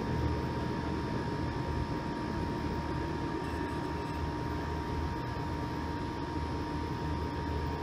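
G scale model freight train running on a garden track: a steady low rumble with a constant thin whine over it.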